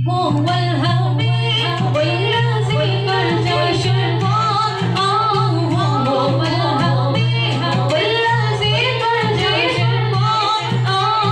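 Women's voices singing a naat, an Urdu devotional song in praise of the Prophet, with no instruments, over a steady low hum.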